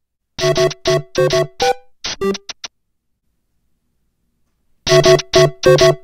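iPhone 7 ringtone played as a preview by the ringer volume slider: a quick melody of short plucked, keyboard-like notes lasting about two seconds. It plays once, stops, and starts again after a two-second pause.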